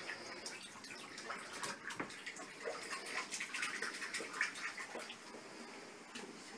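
Water splashing: an uneven hiss with many small, irregular splashes.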